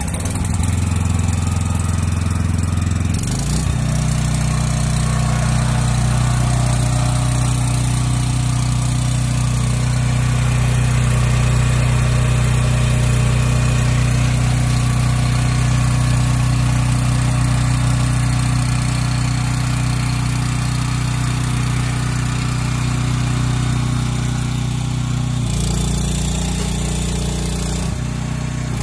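Gasoline engine of an LWG250 welding generator running steadily. It steps up in speed about three seconds in and drops back to a lower speed near the end.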